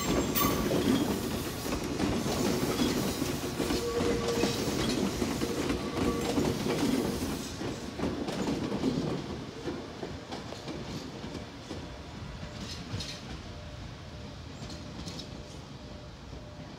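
Nagano Electric Railway 1000 series electric train (a former Odakyu 10000 HiSE) running slowly through the station, its wheels clacking over rail joints and points. The sound is loudest for the first eight seconds or so, then fades as the train draws away.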